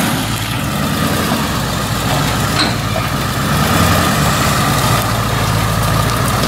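Ford Super Duty pickup's engine running steadily at low revs while the truck creeps along.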